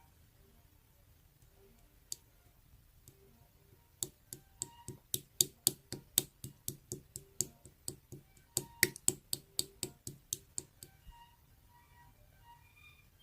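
A quick run of sharp clicks, about three or four a second, starting about four seconds in and stopping a few seconds before the end, over faint soft background tones.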